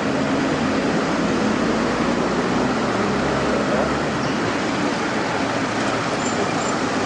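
Heavy diesel machinery running steadily with a low hum and a broad rushing noise, the sound of concrete being delivered and poured.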